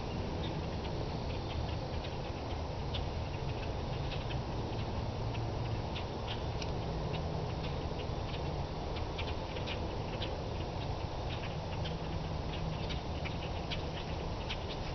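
Light, irregular clicking and ticking from fishing tackle: a fishing reel being cranked and line and lure being handled. A steady low rumble sits underneath.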